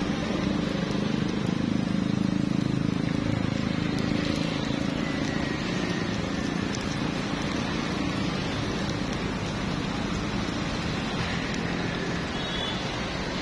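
Takoyaki batter sizzling in hot oil in a takoyaki pan, a steady crackling hiss, with a low rumble under it in the first few seconds.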